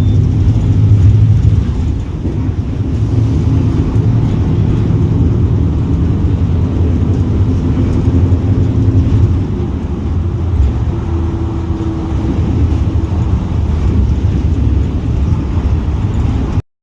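Mercedes-Benz OF 1721 Bluetec 6 bus's diesel engine running, a steady low drone with slight shifts in pitch.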